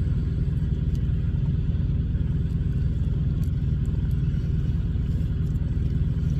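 Steady low rumble of a semi-truck heard from inside the cab, with no change in pitch or level.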